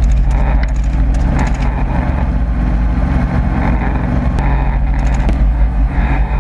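Helicopter engine and rotor running with a loud steady low hum. Over it a 9mm is fired: a quick string of sharp cracks in the first second and a half, and a few more from about four to five seconds in.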